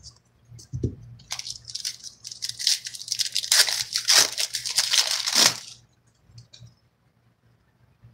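A foil trading-card pack wrapper being torn open and crinkled for about four seconds, after a soft thump just under a second in.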